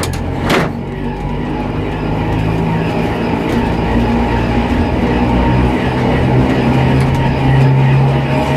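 Old electric tramcar running along narrow-gauge track, heard from the driver's cab: a steady motor hum over the rumble of the wheels on the rails, with a short knock about half a second in.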